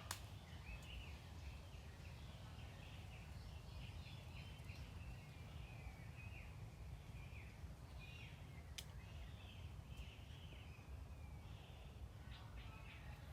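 Faint, continual chirping of small birds over a low background rumble, with a single sharp click about nine seconds in.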